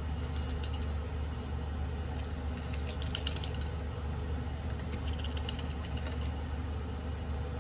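Scales being scraped off a large yellowtail in short scratchy strokes, coming in three bouts, over a steady low hum.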